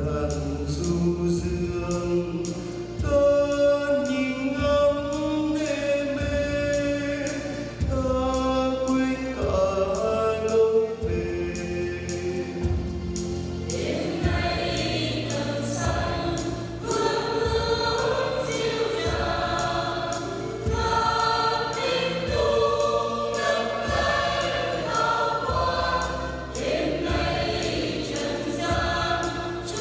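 Church choir singing a Christmas hymn over instrumental accompaniment with a steady bass line; the singing grows fuller about halfway through.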